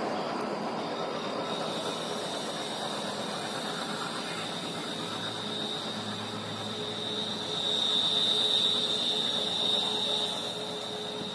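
An express train's rumble fading as it runs away down the line, with a thin, steady high whine from the rails and wheels that swells about eight seconds in and then eases.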